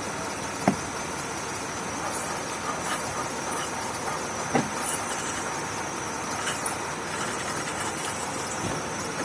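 A vehicle engine running steadily, with two short clicks, one near the start and one about halfway through.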